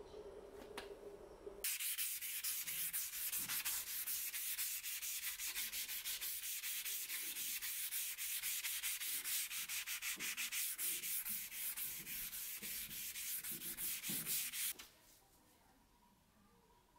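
Steel cleaver blade being sanded by hand: fast back-and-forth scratching strokes of abrasive on bare metal, starting a little under two seconds in and stopping abruptly after about thirteen seconds.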